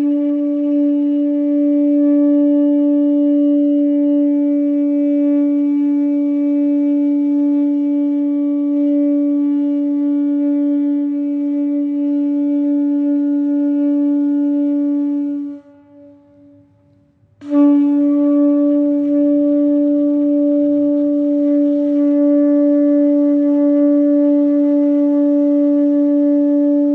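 A conch shell (shankha) blown in two long, steady blasts on one pitch. The first blast breaks off about fifteen seconds in, and the second starts a couple of seconds later.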